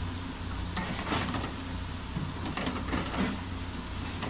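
Chicken pieces deep-frying in a wire basket of hot oil, the oil sizzling and bubbling, over a steady low hum.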